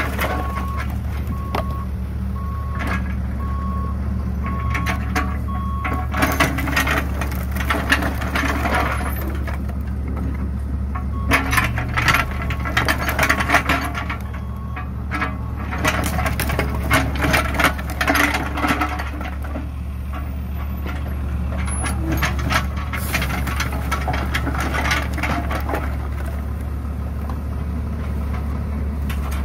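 New Holland 50.2 mini excavator's diesel engine running steadily while its bucket tips and drags split firewood, the logs clattering and knocking together in several bursts. An evenly pulsed beeping sounds for the first six seconds or so, then stops.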